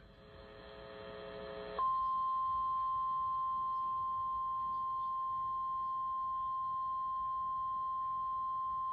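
NOAA Weather Radio warning alarm: a single steady 1050 Hz tone, held unbroken. It signals that a warning message is about to be broadcast. Before it starts, about two seconds in, a faint cluster of several steady tones swells up.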